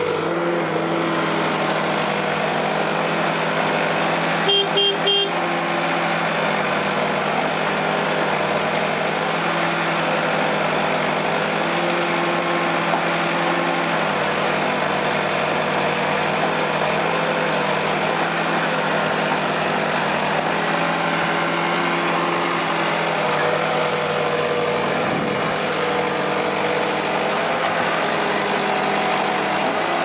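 Bull HD 60 Smart backhoe loader's 60 hp diesel engine running steadily while the backhoe digs. Three short horn beeps come about four and a half seconds in.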